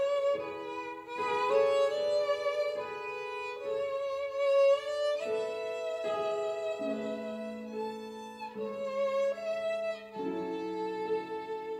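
Solo violin played with a bow: a slow melody of held notes, about one a second, with two notes sounding together in places in the second half.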